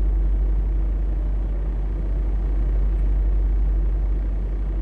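Steady low rumble inside a semi truck's cab from the truck's diesel engine idling.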